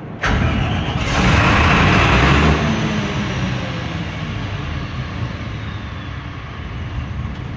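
Cummins diesel engine of a 300 kVA silent-type (canopied) generator set starting: it comes in suddenly, is loudest for a couple of seconds, then settles into steady running.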